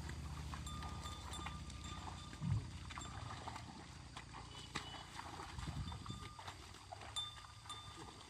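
A water buffalo pulling a plough through a wet, muddy rice paddy: steps and the plough working in soft mud, with small scattered clicks and one short low thump about two and a half seconds in. Faint high chirps come and go over it.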